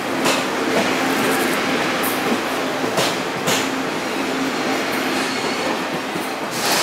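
Passenger coaches of a departing Taiwan Railways train rolling past close by: a steady, loud rumble of steel wheels on rail, with a sharp clack now and then as wheelsets cross the rail joints. The last coach goes by near the end.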